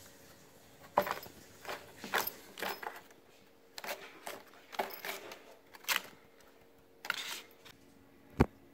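A Bengal cat's paws and claws scuffing and scratching on a corrugated cardboard scratcher in short, irregular bursts, with one sharp knock near the end.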